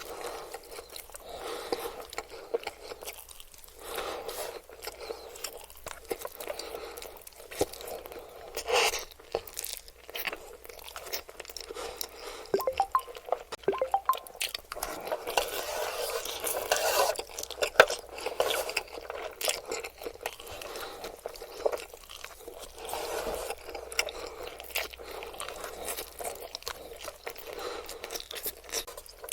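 A person eating spicy noodles close to the microphone: chewing and biting, with many small wet clicks and crunches coming in irregular clusters.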